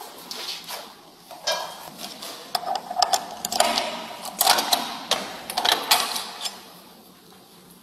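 A run of quick metallic clicks, rattles and clanks, loudest around the middle: handcuffs being handled and the latch of a steel holding-cell door being worked.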